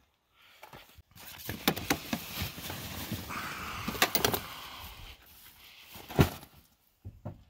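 Rustling and clattering of fishing gear being handled and loaded, with several sharp knocks; the loudest knock comes about six seconds in.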